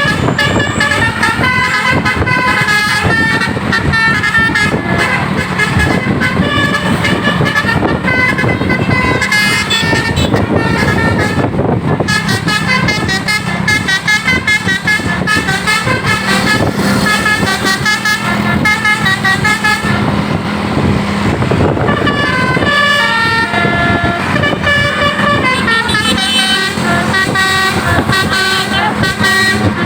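Bus 'telolet basuri' multi-trumpet horn set playing fast, shifting tune-like runs of several tones at once, over a steady low hum.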